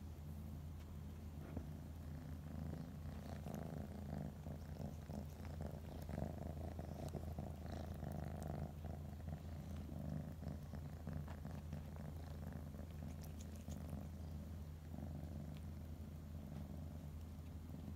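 Tabby cat purring steadily, a continuous low rumble, with soft rustling in places.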